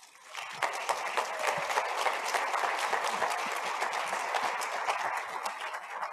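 Audience applauding, swelling in the first second, holding steady, then tapering off near the end.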